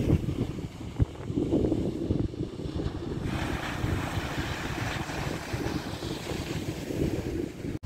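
Wind buffeting the microphone over waves breaking on the shore.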